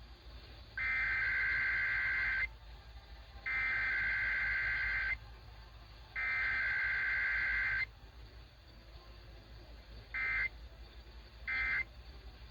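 Emergency Alert System test tones over AM radio: three identical bursts of digital SAME header data, each about a second and a half long and about a second apart. After a pause of about two seconds, two short bursts of the end-of-message code follow near the end. No attention tone sounds between them, which marks a required weekly test.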